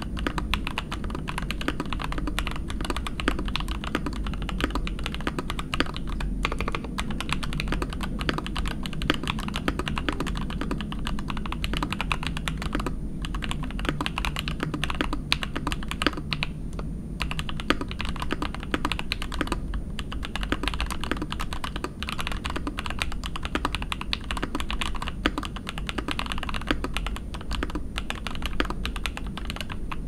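Continuous typing on a Scarlet TKL mechanical keyboard with lubed Jwick Black linear switches, an aluminium plate, an O-ring mount and PBT keycaps: a dense, steady run of keystrokes with a few short pauses around the middle.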